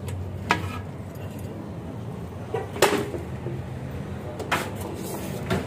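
Sharp metal clinks and knocks, about four of them with the loudest near the middle, as an iron hook rod and roasted meat knock against a large aluminium basin. A low steady hum lies underneath.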